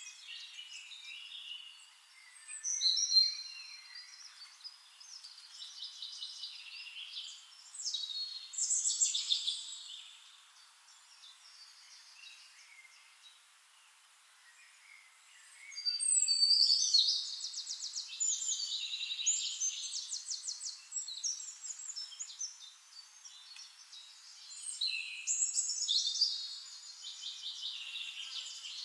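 Forest songbirds singing in bursts of high, rapid trills and chirps, with a quieter lull in the middle.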